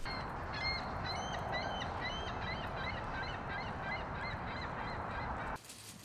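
A flock of birds calling: many short calls, several a second, over a steady rushing background noise. The sound cuts off abruptly near the end.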